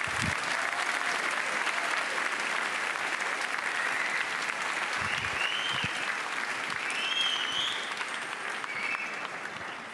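Audience applauding steadily, with a few short cheers or whistles above it, easing off near the end.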